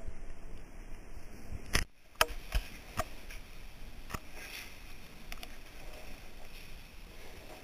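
Several irregular sharp clicks and knocks from handled rope gear, over a steady background hiss.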